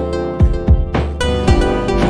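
Background music: plucked-string chords over deep drum hits.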